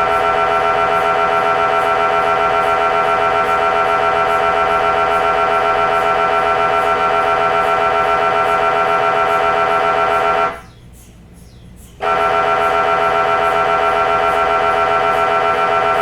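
MRI scanner's gradient coils sounding a loud, steady buzzing tone made of rapid pulses. It stops about ten and a half seconds in, leaving a low hum, and starts again about a second and a half later.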